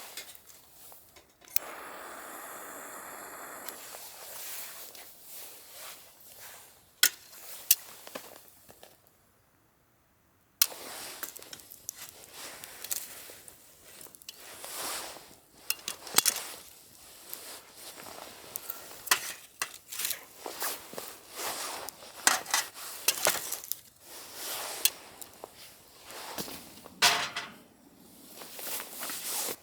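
Camp cooking and eating sounds: repeated clinks and taps of dishes and utensils with some crunching, and a steady hiss lasting a couple of seconds near the start.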